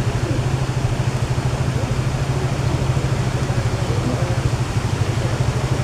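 An engine running steadily at idle, with a low, fast, even throb.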